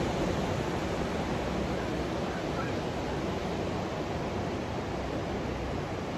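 Ocean surf breaking on a beach, heard as a steady wash of noise.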